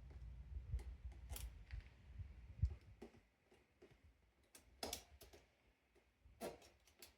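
Scattered light metallic clicks and taps of a motorcycle chain's master link being fitted by hand, over a low handling rumble in the first three seconds.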